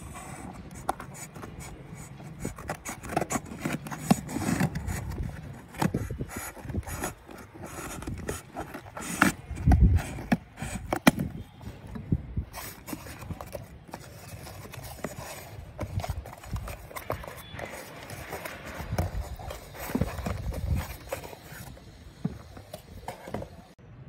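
Scissors cutting the packing tape on a cardboard shipping box, then the flaps being pulled open and the box handled: irregular scrapes, rustles and knocks, with a heavier thump about ten seconds in.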